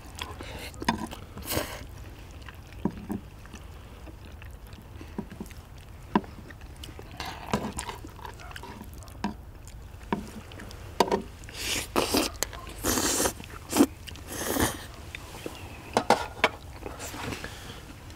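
People eating jjajang tteokbokki: chewing and slurping the sauced rice cakes, with chopsticks clicking against plates and the metal griddle. Short clicks throughout, with a cluster of longer slurping sounds in the middle, over a steady low rumble.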